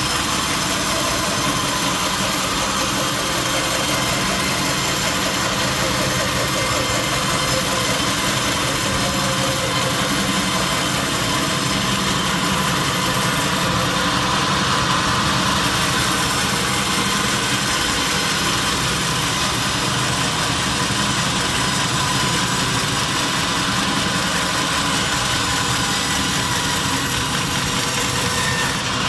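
Sawmill machinery running steadily: a constant mechanical hum with a high steady whine over it.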